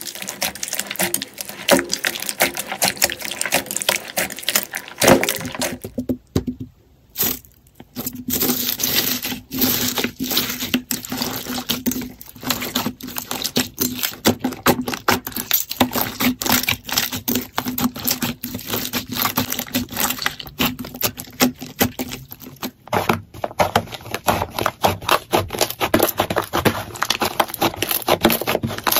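Hands squishing, poking and stretching slime, some of it packed with foam beads. The result is a dense, continuous run of crackling and popping clicks, with a short quiet pause about six seconds in.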